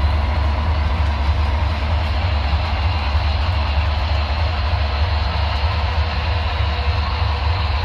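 HO scale model train running on the layout: a steady low hum with a noisy whir above it, unchanging throughout.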